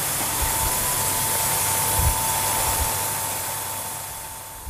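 Heavy simulated rain from a rainfall simulator pouring onto soil buckets and a metal grating floor: a steady hiss with a thin steady tone running through it. It fades out near the end.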